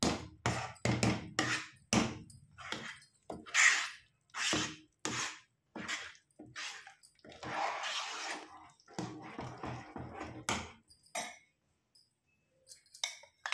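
A metal spoon stirs and scrapes thick maize-flour porridge in a steel pot, in a run of irregular strokes. The strokes stop about eleven seconds in.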